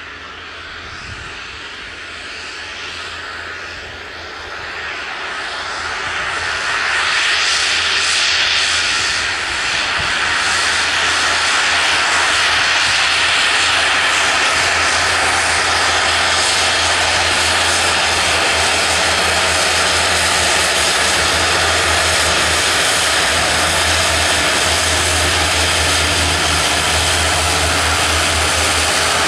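The twin Pratt & Whitney Canada PW119B turboprop engines of a Dornier 328-110 run as it taxis onto the runway. They grow louder about five to seven seconds in, then hold a loud, steady whine over a low propeller hum.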